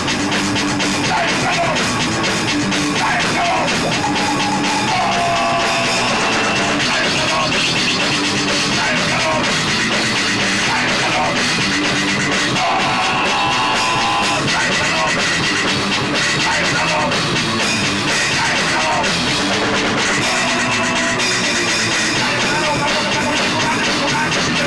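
Loud rock music with a drum kit, playing steadily.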